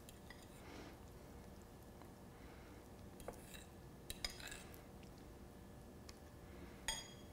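A fork clinking a few times against a ceramic bowl while a floured pork chop is turned in beaten egg, the clearest clink ringing briefly near the end; otherwise quiet.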